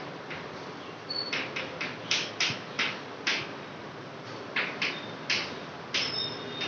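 Chalk writing on a chalkboard: an uneven run of short strokes, about two a second, with a brief pause midway.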